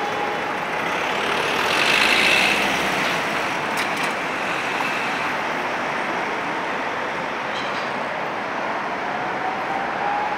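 Tatra T3SUCS tram set pulling away from a stop and running off along the street, mixed with city traffic noise. The noise swells about two seconds in, and there is a sharp click a little before halfway.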